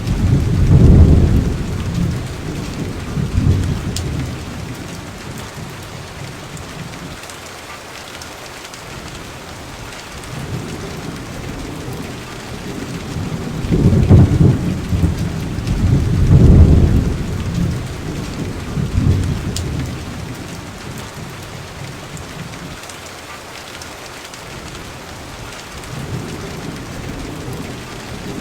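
Steady rain with rolls of thunder: low rumbles swell and fade about a second in and again around 14 and 16 seconds in.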